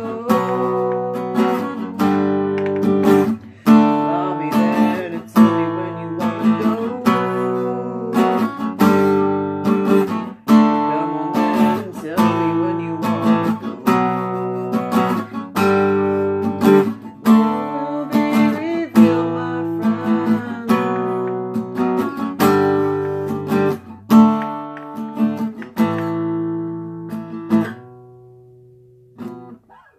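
Acoustic guitar strumming chords, the last chord ringing out and fading away about 28 seconds in.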